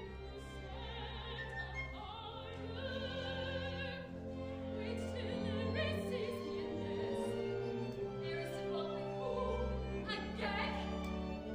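Operatic singing in women's voices, with a wide vibrato on held notes, over a live pit orchestra.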